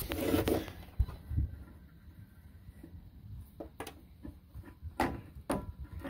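A corroded water-heater anode rod being pulled up through its port by hand, with a couple of low thumps about a second in and a scatter of scrapes and sharp clicks later on as the rod catches and knocks against the fitting.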